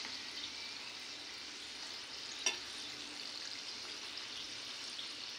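Paneer samosas deep-frying in hot oil on a low flame: a steady sizzle with fine crackling. One sharp click about two and a half seconds in.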